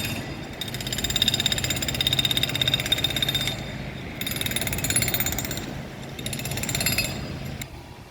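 Jackhammer hammering rapidly in several bursts with short pauses between them, stopping near the end.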